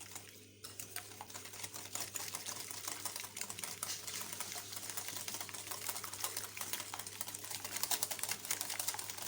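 Eggs and sugar being beaten by hand in a bowl: a utensil clicks rapidly and steadily against the bowl as the mixture is stirred until the sugar dissolves.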